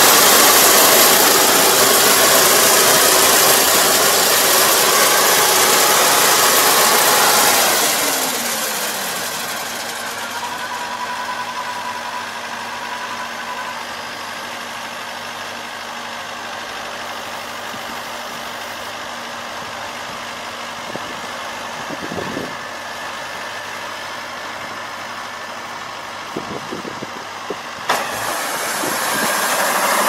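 Kubota ER470 combine harvester's diesel engine and machinery running loudly, falling in pitch and dropping to a quieter steady run about eight seconds in, with a few light knocks, then getting louder again near the end.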